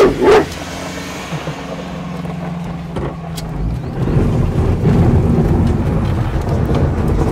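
Engine and road noise inside a moving Toyota car's cabin: a steady low hum that grows into a louder rumble of tyres on a rough dirt road from about four seconds in. A dog barks once right at the start.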